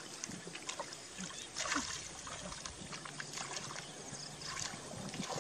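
Shallow muddy water and mud sloshing and squelching in small, irregular splashes and clicks as hands grope through a flooded rice paddy.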